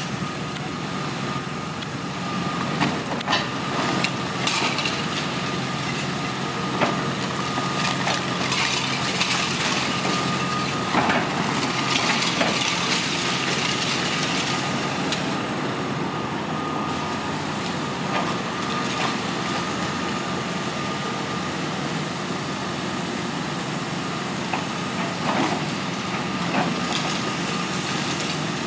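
Long-reach demolition excavator running steadily while its crusher jaw breaks up a concrete building, with repeated cracks and clatters of breaking and falling rubble, busiest from about 8 to 14 seconds in and again near the end. A thin steady whine runs under the machine noise.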